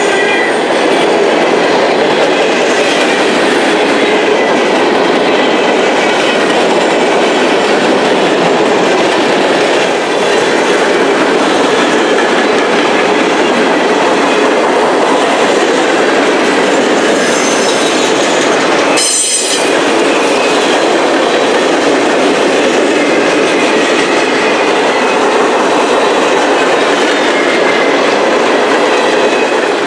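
CSX freight train of hopper cars and gondolas rolling past close by: a steady, loud clatter of steel wheels over rail joints, with faint wheel squeal. The sound breaks off briefly about two-thirds of the way through.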